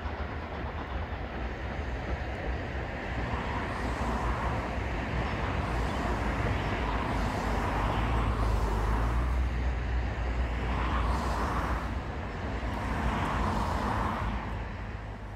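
Distant steam-hauled train running: a steady rumble with slow swells every few seconds and a heavy, fluctuating low end. It fades out at the very end.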